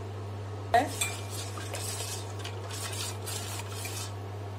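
A metal spoon stirring salt into hot water in a steel pot. It clinks once against the pot less than a second in, then scrapes and swirls against the bottom and sides for about three seconds.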